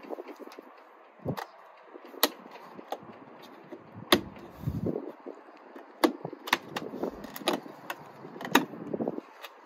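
Plastic trim on a VW Golf Mk6's inside door panel being pried at with a plastic trim tool: a string of sharp clicks and snaps, with scraping and rustling about halfway through.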